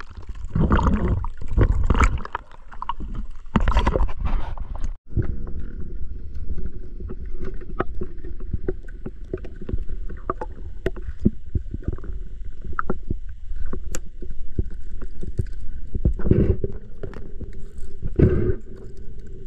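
Water sloshing and splashing close to the microphone while fishing in the water, with a steady low rumble, louder surges at the start and near the end, and many scattered sharp clicks.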